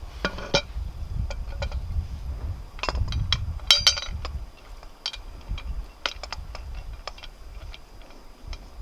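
Scattered clinks and knocks of metal cookware and utensils being handled, a dozen or so separate strikes with a short ring, the loudest cluster a little under halfway through, over a low steady rumble.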